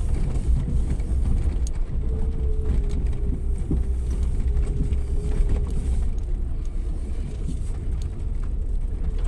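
Suzuki Jimny 4x4 driving off-road: a steady low engine and drivetrain rumble with a held whine, and scattered short knocks and rattles.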